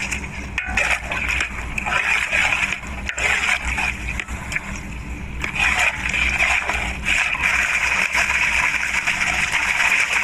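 Mutton pieces frying in ground spice masala paste in a large pot, sizzling as a wide spatula stirs and scrapes through them, with water splashing in near the end.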